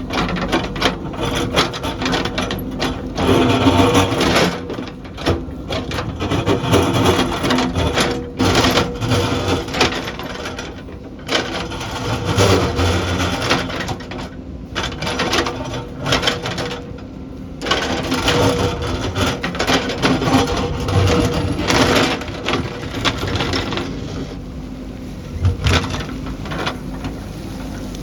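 Backhoe loader's diesel engine running steadily, with many irregular knocks and scraping as rock and earth are dug and moved.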